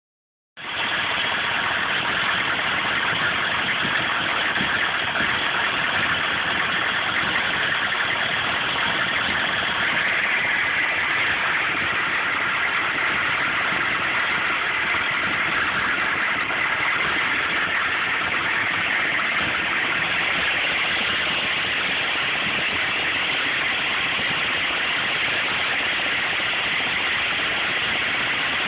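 1995 GMC K3500's 6.5-litre turbo diesel V8 idling with a steady, dense clatter, starting about half a second in. The owner calls it a rough idle with misfires, and suspects the PMD or the injection pump.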